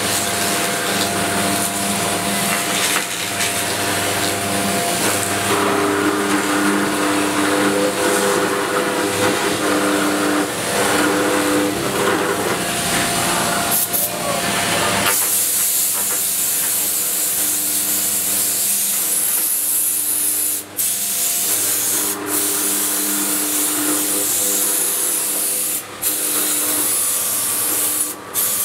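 4-axis Bridgeport CNC milling machine cutting wood with an end mill: a steady hiss of cutting over the hum of the spindle and machine motors. About halfway through the hiss turns brighter and the low hum drops back.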